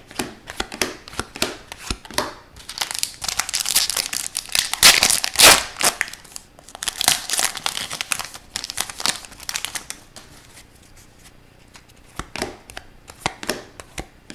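Foil wrapper of a hockey card pack being torn open and crinkled. The crackling is thickest in the middle and gives way to a few light rustles and clicks of card handling near the end.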